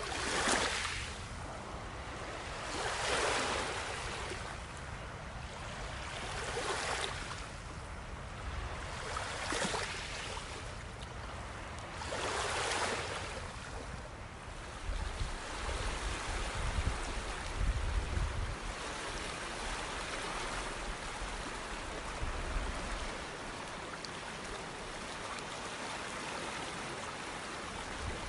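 Ocean surf: small waves breaking on a shore about every three seconds in the first half, then a steadier rush of water with gusts of wind rumbling on the microphone.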